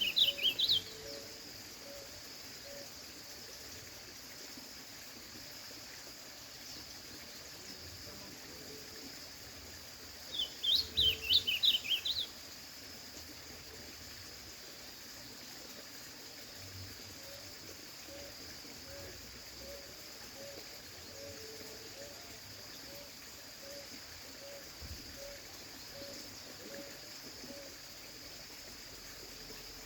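Ultramarine grosbeak (azulão) singing two short, quick warbled phrases, one at the start and one about eleven seconds in. Between them there is a steady high drone and a faint soft note repeated about twice a second.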